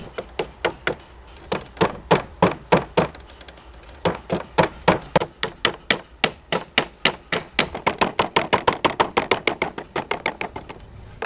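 A mallet striking the wooden frame of a vintage high chair again and again, knocking a joint apart: quick runs of sharp knocks, about four a second, with a short pause about three seconds in.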